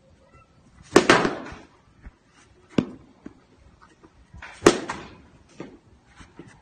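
Two sharp cracks of a baseball striking, about four seconds apart, each followed by a short ringing tail, with a fainter click between them.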